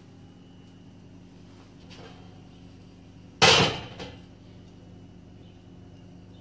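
A single loud clatter of kitchenware, a plate or baking tray knocking down, about three and a half seconds in, with a lighter knock just after. A steady low hum runs underneath.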